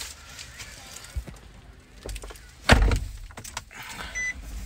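Low steady rumble of a car running, with one loud thump about two and a half seconds in and a short high beep near the end.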